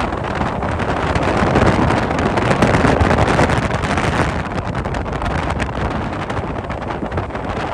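Strong wind buffeting the microphone: a loud, rough, unbroken rush that covers all other sound.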